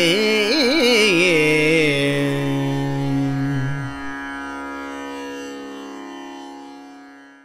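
Carnatic devotional music closing: an ornamented melody with wavering notes settles after about two seconds into long held notes over a steady drone, which fade out.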